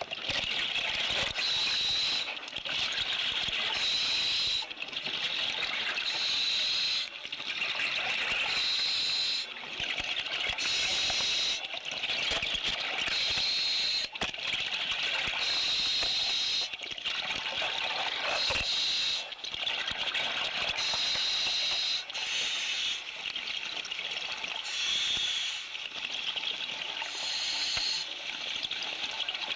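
Scuba diver breathing through a regulator underwater: a hiss and a bubbling wash that repeat about every two seconds, one cycle per breath.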